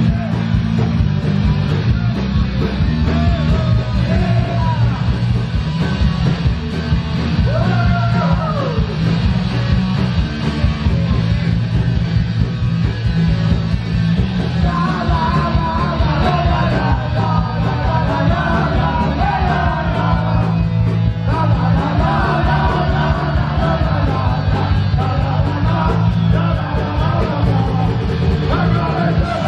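Punk rock band playing live and loud: electric guitar, bass guitar and drums, with a lead vocal singing over them.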